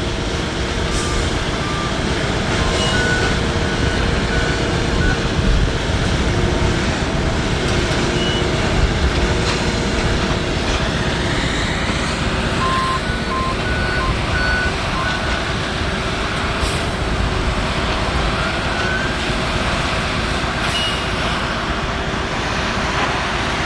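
Railroad track maintenance machines of a tie-replacement gang running their engines, a steady mechanical drone. Short electronic warning beeps sound now and then at several different pitches.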